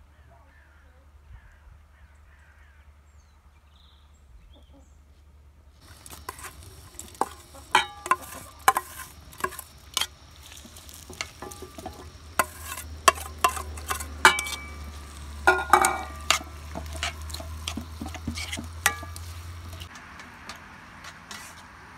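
Starting about six seconds in, a metal spoon scrapes and clinks against a metal bowl and an enamel cooking pot as crumbled whey cheese is scraped into the eggplant mixture and stirred. Near the end a steady frying sizzle takes over.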